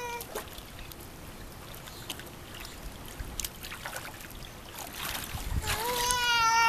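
Pool water splashing and lapping lightly as a baby is held and moved through it. Near the end comes one long high-pitched cry from the baby girl, the loudest sound.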